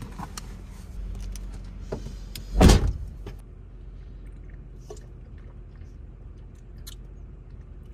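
Pickup truck's driver door shut with a single heavy thud about two and a half seconds in, followed by a few faint clicks and handling noises inside the closed cab.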